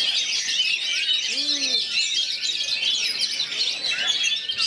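Several Oriental magpie-robins (kacer) singing at once in a dense, unbroken chorus of rapid chirps, trills and short whistles.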